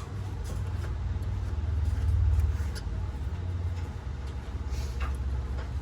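Low, steady mechanical hum with a fast pulse, swelling about two seconds in, with a few faint clicks.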